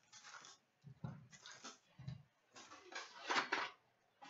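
Clear plastic shrink-wrap crinkling and a cardboard trading-card box being handled, in a few short bursts of rustling. The loudest comes a little after three seconds in.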